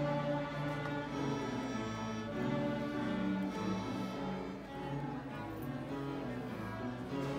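Student string orchestra of violins and cellos playing together, bowing sustained notes that change every second or so.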